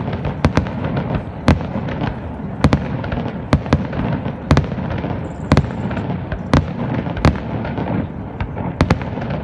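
Fireworks display: shells bursting in irregular succession, one or two sharp bangs a second over a continuous low rumble.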